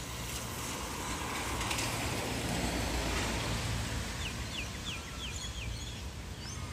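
Street traffic: a car passing that swells and fades over a few seconds. About four seconds in, a bird gives a quick run of six or so short, falling chirps.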